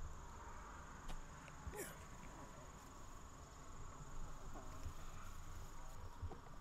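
Outdoor ambience with a steady high-pitched insect trill, with a few faint clicks.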